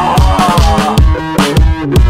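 Background music: an electronic track with a steady drum beat and a pitched instrumental melody.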